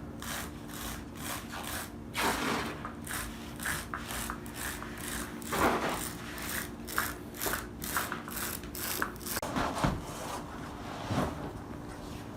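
Carpet installers at work: a quick, irregular run of short scraping and knocking strokes, with a few louder ones.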